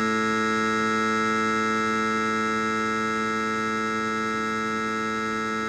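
Computer-generated buzz tone: a full harmonic series built on a low fundamental of about 100 Hz, with the fundamental still present. It starts suddenly and holds steady and unchanging.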